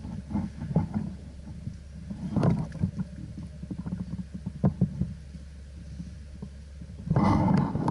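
Low rumbling handling noise from a body-worn action camera, with scattered knocks and clicks. A louder rush of noise starts near the end.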